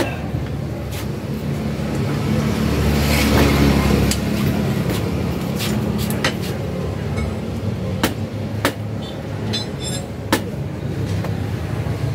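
A nearby motor vehicle engine running steadily with a low hum, swelling louder for a couple of seconds about three seconds in, as a vehicle passes. Sharp metal clicks and taps from hand tools come every second or two.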